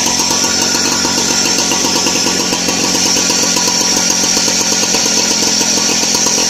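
Small engine of a homemade garden tractor running steadily, with a fast, even firing rhythm.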